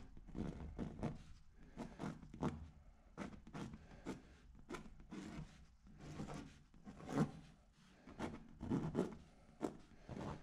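Irregular close rustling and scraping with many short soft knocks, a fraction of a second apart, of hands or clothing moving against the microphone.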